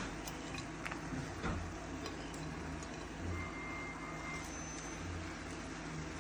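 A steady low hum that swells about every two seconds, with a few faint light taps and rustles in the first couple of seconds as celery leaves are dropped into a stainless steel pot.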